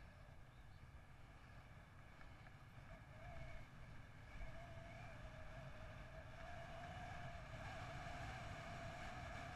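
Wind and tyre noise from a bicycle rolling along tarmac, with a faint steady whine that grows a little louder about halfway through.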